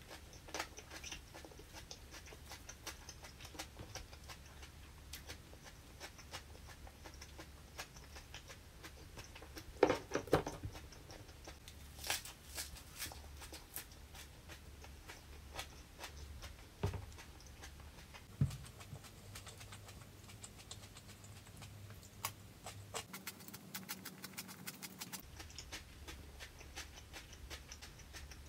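A person chewing crispy fried vegetables and fresh herb leaves close to the microphone: faint, scattered crunches and mouth clicks, with a louder crunch about ten seconds in and another cluster a couple of seconds later.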